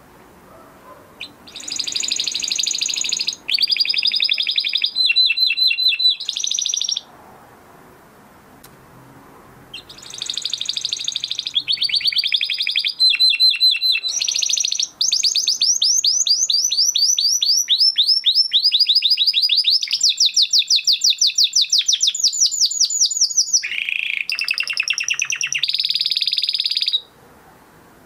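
Spanish Timbrado canary singing in two bouts: a short one of about five seconds, then, after a pause of a few seconds, a long one of about seventeen seconds. Both are made of fast trills of rapidly repeated notes, each section at its own pitch and pace.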